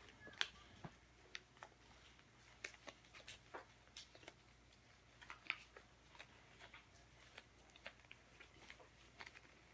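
Faint, irregular crinkles and ticks of a long paper strip being folded up by hand.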